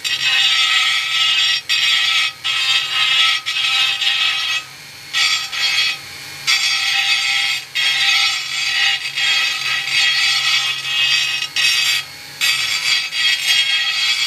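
Dremel rotary tool with a radiused cutter running with a high-pitched whine as it grinds JB Weld filler in a dented aluminium motorcycle wheel rim, stopping briefly three times.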